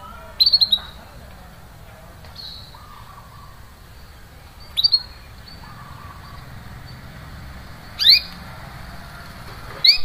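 Canary giving sharp 'cuit cuit' chirp calls in short clusters: a quick run of three or four just under a second in, a pair about five seconds in, and single sharp ones near eight seconds and at the end, with softer chirps between them.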